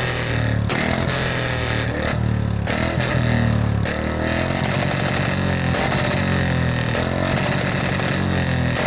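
Royal Enfield Bullet single-cylinder motorcycle engine running and being revved again and again, its pitch rising and falling every second or two.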